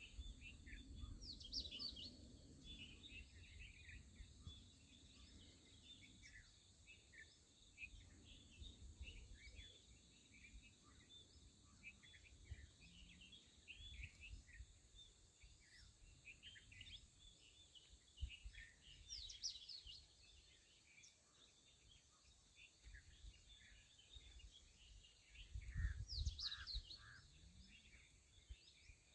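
Faint chorus of small birds chirping and calling, with three brief bursts of quick, higher calls. Occasional low rumbles underneath, the loudest near the end.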